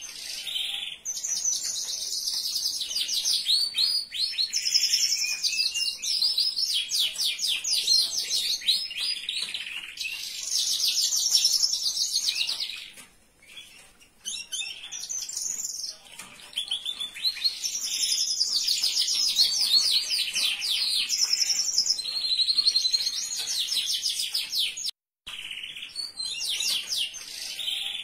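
Domestic canary singing long phrases of rapid rolling trills, with a short pause about halfway through and a brief break near the end.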